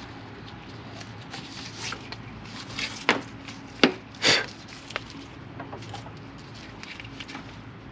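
A few sharp clicks and knocks with one short scrape a little after the middle, from metal brake parts being handled while a bungee cord is hooked on to hold up the brake caliper.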